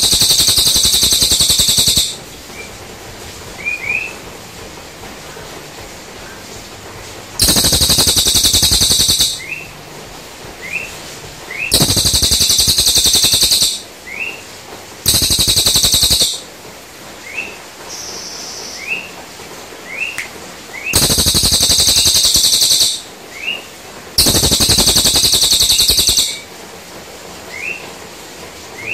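Cililin songbird singing: loud, rapid rattling trills about two seconds long, six of them, with short rising chirps in between.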